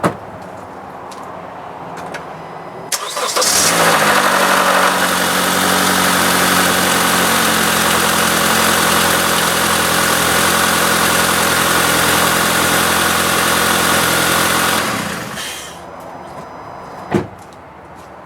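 Honda Accord engine started about three seconds in, catching almost at once with a short flare and then running at a steady idle for about twelve seconds before it is switched off. It is a brief run after an oil change to circulate the fresh oil before the level is checked on the dipstick.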